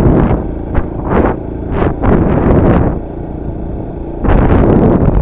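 Wind buffeting the microphone over the low rumble of a vehicle climbing a hill. The buffeting eases soon after the start, with a few short gusts, and comes back loud near the end.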